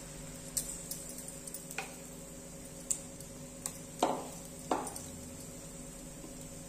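Steel spoon scraping and tapping on an iron tawa while spreading chila batter in circles: a few short scrapes and clicks, the two loudest and longest about four and four and a half seconds in, over a steady low hum.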